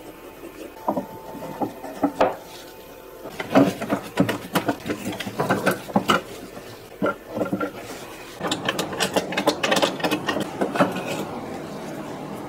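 Wood blocks and a steel parallel bar clamp being handled on a workbench during a glue-up: scattered knocks, then a busy run of clicks, scrapes and rubbing as the clamp is slid into place and tightened, densest for a few seconds past the middle.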